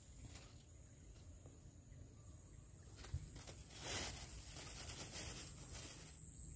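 Faint streamside ambience with a steady high-pitched insect drone. A single click comes about three seconds in, and a short rush of handling noise about four seconds in as the float rig is held up and cast.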